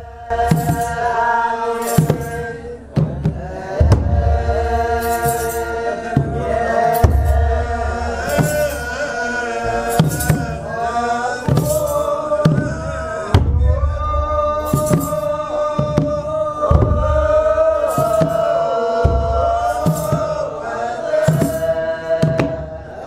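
Ethiopian Orthodox liturgical chant: a group of men's voices holding long, slowly gliding notes, with kebero drum beats at a slow, steady pulse about every second and a half.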